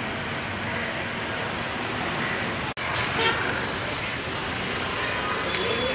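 Street traffic noise with vehicles running, and a vehicle horn tooting. The sound drops out for an instant about three seconds in, where the recording cuts.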